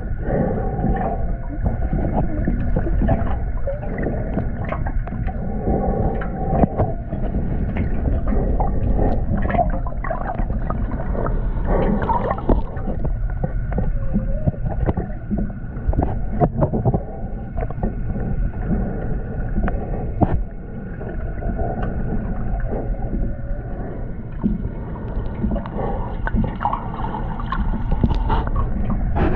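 Muffled underwater sound heard through a GoPro's waterproof housing: a steady low rumble of water with scattered clicks and gurgles, and faint steady tones behind it.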